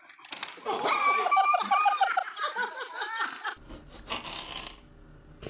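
A person laughing in a quick run of short repeated bursts, then it cuts off and a quieter stretch of faint background noise follows.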